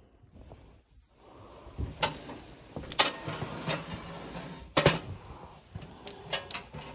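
A drop-ceiling tile being pushed up and slid aside in its metal grid: several sharp knocks with a scraping rustle between them.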